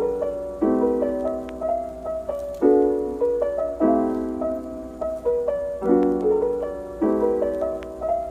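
Background music: a slow solo piano piece, with chords and notes struck every second or so that ring and fade.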